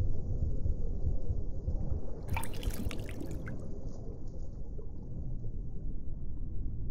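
Designed ambient film soundscape: a steady deep, low rumble, with a short burst of watery splashing and bubbling about two and a half seconds in that lasts about a second.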